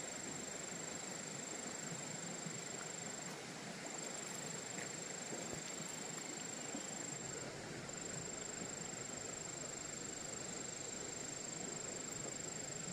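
Steady outdoor ambience: an even hiss with a thin, continuous high-pitched insect drone that drops out briefly twice.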